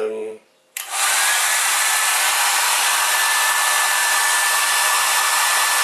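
Hair dryer switched on about a second in and blowing steadily at its high setting, with a faint steady whistle in the airflow.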